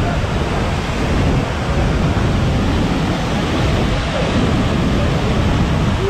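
Waterfall at close range, its falling water crashing into the plunge pool: a loud, steady rushing noise.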